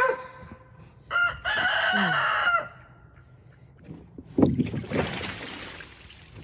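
A rooster crows once, a long held cock-a-doodle-doo, about a second in. A few seconds later comes a rush of splashing water.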